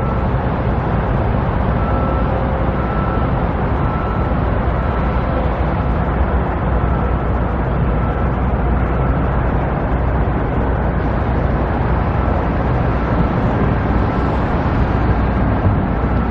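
Steady outdoor rumble of machinery and traffic noise, with faint short beeps repeating through it.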